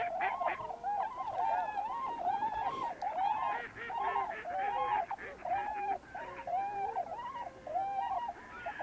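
A flock of waterfowl calling: many short, arched calls overlapping one another without a break.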